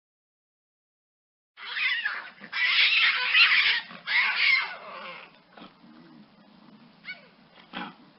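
Lynx calling: three loud, harsh calls in quick succession, starting after a short silence, followed by two short, quieter calls near the end.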